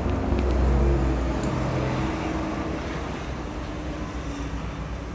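Low rumble with steady humming tones, loudest about a second in and then slowly fading.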